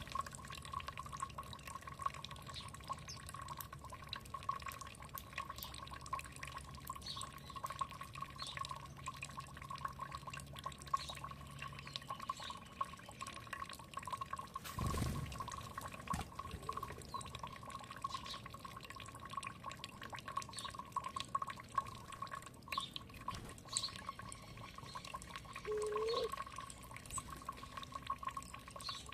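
Water trickling and dripping steadily, with short, faint bird chirps scattered over it.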